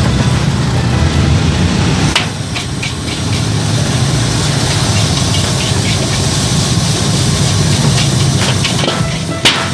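Fried rice being stir-fried in a large iron wok: a metal spatula scrapes and knocks against the wok over the steady rush of a high-flame burner and the hiss of frying. A single sharp metal clang comes near the end.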